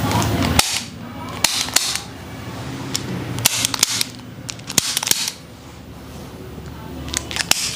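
Spinal joints cracking during a side-lying lumbar chiropractic adjustment: a series of sharp pops and clicks spread over several seconds.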